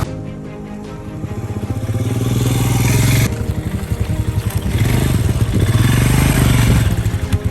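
Royal Enfield Himalayan's 411 cc single-cylinder engine running under throttle, its pulsing note building in loudness, with an abrupt cut about three seconds in before the engine note picks up again.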